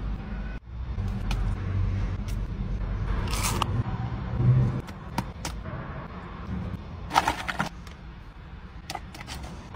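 Food packaging being handled: a paper cup and a styrofoam tray of fries scraping and crackling in short bursts, the loudest about three and a half seconds in and again around seven seconds, over a steady low rumble.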